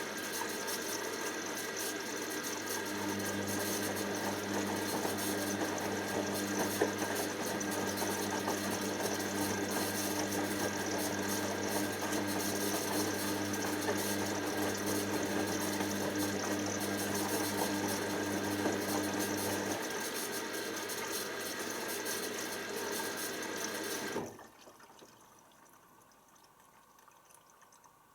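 Hoover DYN7144XD1 washing machine running a cycle: a steady rush of water with a motor hum that comes in a few seconds in and stops about twenty seconds in. The rushing cuts off suddenly near the end.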